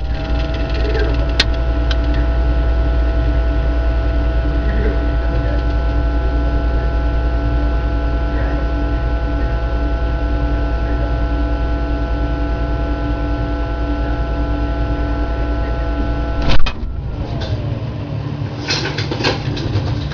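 A kitchen appliance running with a steady electric hum and several steady tones over it, ending abruptly with a loud click about sixteen seconds in, then light clattering.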